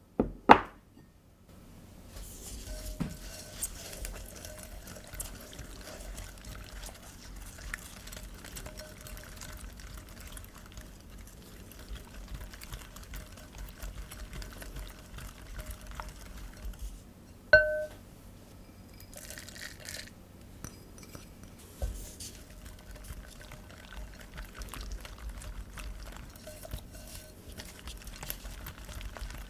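Madeleine batter being worked by hand in a mixing bowl: soft, continuous stirring and scraping with scattered light ticks. Two sharp knocks come right at the start, and one loud clink of a utensil against the bowl about seventeen seconds in rings briefly.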